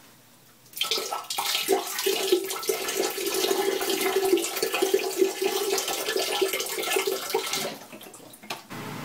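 Water rushing, loud and steady, starting abruptly about a second in and dying away near the end.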